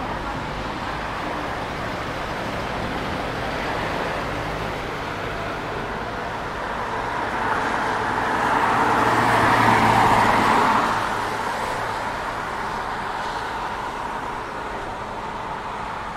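A vehicle passing by, growing louder to a peak about ten seconds in and then fading, over steady street noise.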